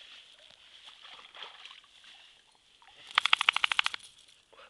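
American Staffordshire terrier wading out of a shallow river onto the bank, water sloshing and splashing around her. About three seconds in comes a loud, fast rattle of about twenty clicks lasting roughly a second.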